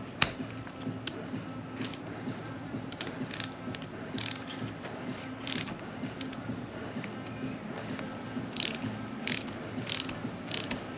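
Small hand ratchet clicking in short, irregular bursts as a bolt is run into a motorcycle's front brake caliper.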